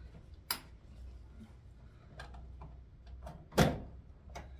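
Distributor cap on a Zastava 1100p engine being taken off and handled to turn it round: a sharp click about half a second in, a few faint ticks, and a louder plastic-and-metal clack a little after three and a half seconds in.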